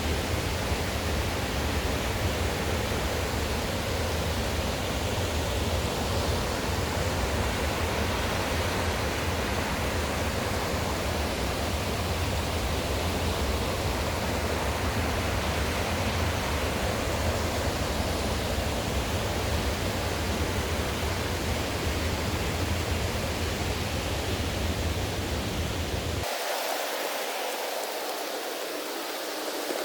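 Steady rushing water of a mountain stream's rapids and waterfalls, with a deep rumble beneath it that cuts off suddenly near the end.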